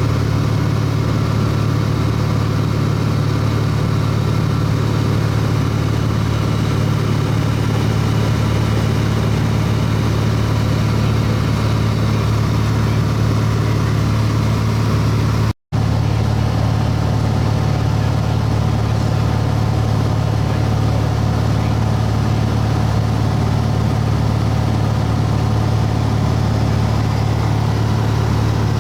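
Light aircraft's propeller engine droning steadily, heard from inside the cabin in flight. It cuts out for an instant about halfway through.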